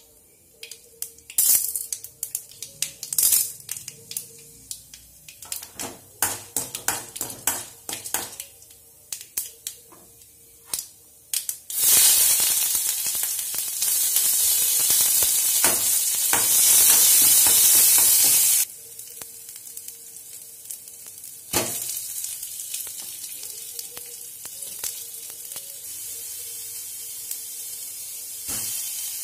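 Tempering in hot oil in a kadai: mustard seeds popping in sharp, irregular cracks for about the first eleven seconds. Then a loud frying sizzle as curry leaves go into the oil, which drops off suddenly to a steady, quieter sizzle of onions frying, with a couple of ladle knocks on the pan.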